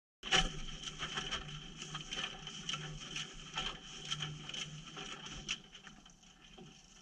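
Washing machine drum tumbling a T-shirt in wash water, heard from inside the drum: irregular splashing and knocks over a steady hiss. It fades to a faint hiss after about five and a half seconds.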